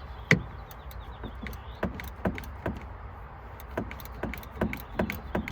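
Ratcheting wrench clicking as it loosens the car battery's positive terminal clamp: a string of sharp clicks, a few a second, the loudest about a third of a second in.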